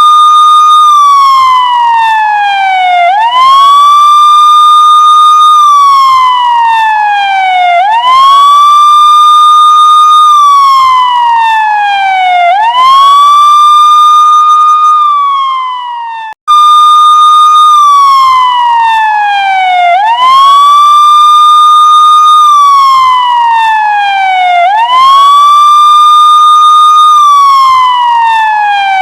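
Police car siren in wail mode: each cycle climbs quickly, holds a high note, then slides slowly down, repeating about every four and a half to five seconds. It cuts out for an instant about sixteen seconds in and comes back on the high note.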